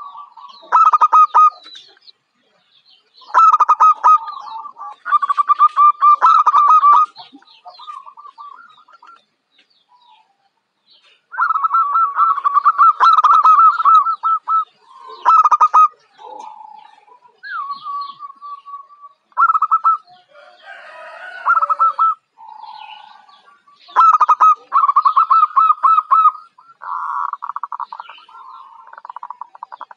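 Zebra dove (perkutut) cooing: loud bouts of rapid, stuttering coo notes repeated over and over with short pauses between them.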